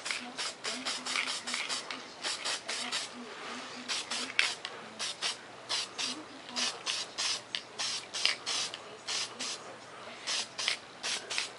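Aerosol can of Testors flat black spray paint hissing in many short bursts, about two a second, as a quick top coat is sprayed.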